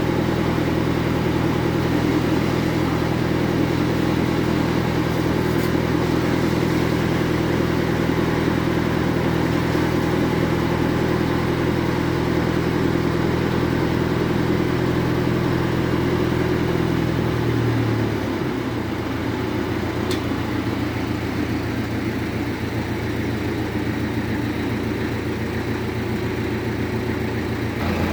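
Bandsaw mill's drive running steadily with a low hum. About two-thirds of the way through its note drops and it gets a little quieter, then it runs on evenly.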